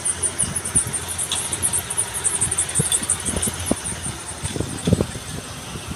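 Heavy tipper trucks driving past on a road, engines running, with a rapid high-pitched chirping pulsing several times a second that fades out about two-thirds of the way through. A few dull thumps, the loudest near the end.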